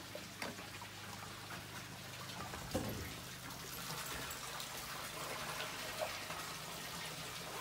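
Water trickling and gushing into a hot tub in a small wooden bathhouse, with a low steady hum under it and a few short knocks, likely footsteps on the wooden boards.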